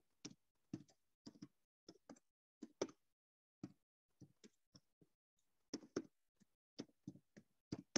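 Computer keyboard being typed on: faint, irregular key clicks a few per second, with a short pause a little past halfway.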